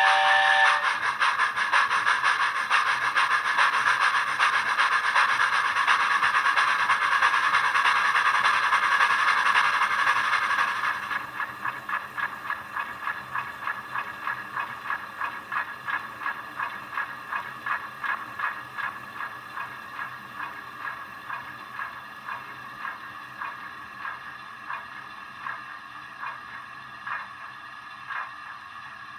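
Recorded steam-locomotive sounds of an LNER A4, played by a LokSound v5 sound decoder in a model locomotive through twin small iPhone speakers. The tail of a whistle ends at the very start. For about eleven seconds there is a loud, fast run of exhaust chuffs with hiss, then the sound drops to quieter, distinct chuffs that space out and slow as the model slows.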